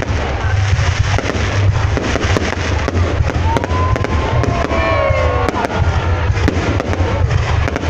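Fireworks going off in a dense, continuous run of crackles and sharp pops over a heavy low rumble, with a few whistling tones gliding in pitch around the middle.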